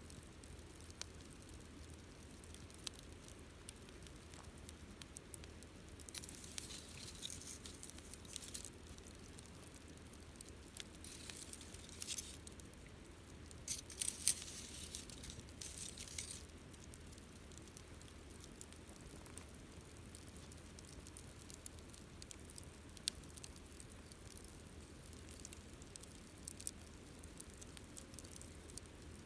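Wood campfire crackling with scattered sharp pops, with denser bursts of crackling about six seconds in and again around fourteen seconds in, over a steady low hum.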